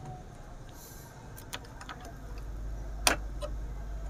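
Low mains hum from an open, powered-up public-address amplifier, growing a little about two seconds in, with a few scattered small clicks and knocks, the loudest about three seconds in.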